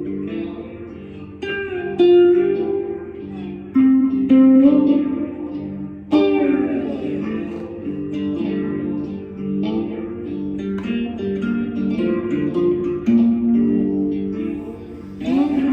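Guitar played with a slide: a run of plucked notes, with sliding pitch glides about six seconds in and again near the end.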